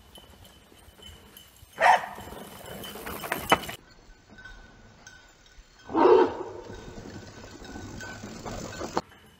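A dog barks twice, about two seconds in and again about six seconds in. Each bark is followed by a rough rolling noise from a mountain bike riding over the dirt trail, which cuts off suddenly near four and nine seconds in.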